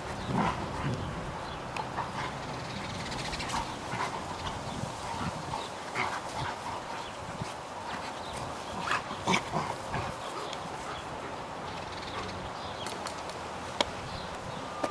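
Tibetan Mastiff puppy making short, scattered vocal sounds, loudest about half a second in and again around nine seconds in.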